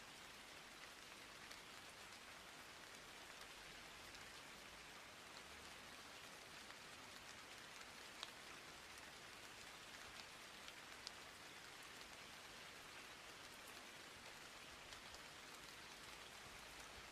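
Faint steady hiss with scattered faint clicks, and no music or voice.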